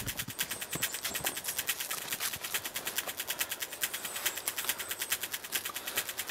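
Rapid, even ticking with a steady rhythm, with a faint high chirp or two.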